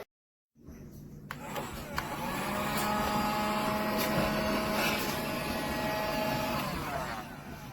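BLAXTEM kids' toy vacuum cleaner's small electric motor running with a steady whine, starting after a couple of clicks about two seconds in and dropping away near the end.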